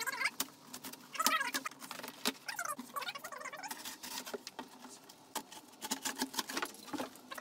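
A large cardboard shipping box being handled and pulled open: cardboard scraping and crackling, with many small knocks and short squeaks of cardboard rubbing on cardboard.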